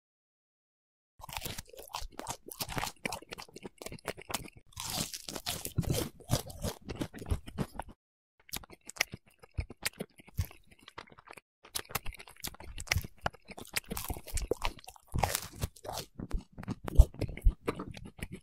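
Crunching and chewing of crisp food, a dense run of sharp crackles that starts about a second in, breaks off briefly about eight seconds in, then resumes, with one loud crack near the end.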